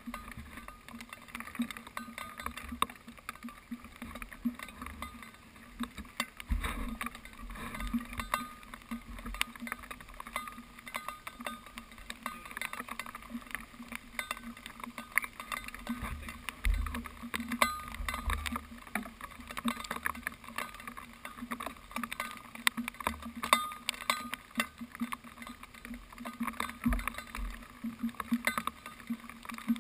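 Irregular small clicks and knocks with a few low thumps, picked up through the housing of an action camera mounted on a mountain bike while the bike is handled.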